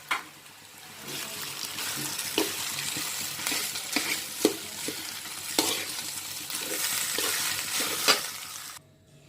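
Cooked rice being stirred into fried vegetables in a hot pan: a steady sizzle with spatula scrapes and knocks against the pan, cutting off suddenly near the end.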